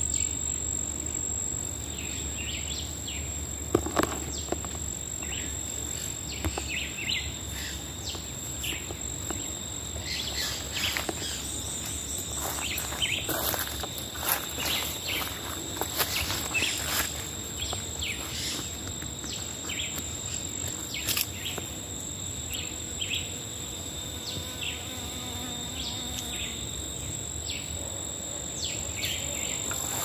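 Steady high-pitched insect chorus running throughout, with many short bird chirps and calls scattered over it.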